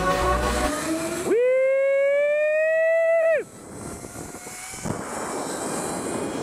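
Zipline trolley pulleys whining along the steel cable. The whine is high and slowly rises in pitch, gets suddenly louder about a second in, and cuts off abruptly after about three and a half seconds. A steady rushing noise follows.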